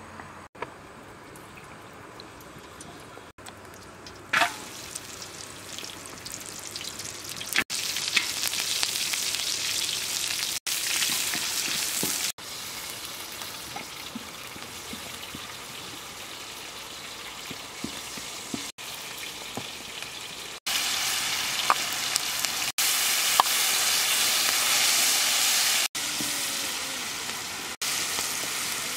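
Lemongrass, red chilies and leaves frying in oil in a large wok: a steady sizzle that jumps louder several times.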